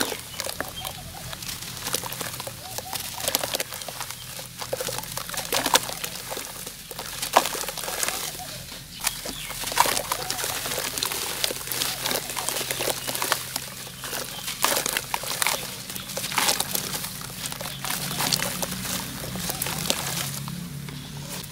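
Dry clumps of brown sand-cement dirt crumbled and crushed by hand, with irregular gritty crunching and crackling and a hiss of powder falling from the hands.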